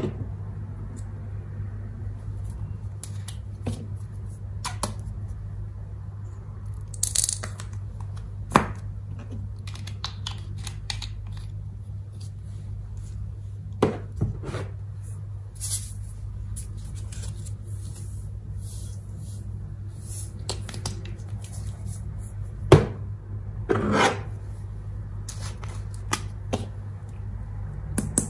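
Scattered light clicks and taps of small plastic glitter pots and glass bowls being handled, a few sharper knocks among them, over a steady low hum.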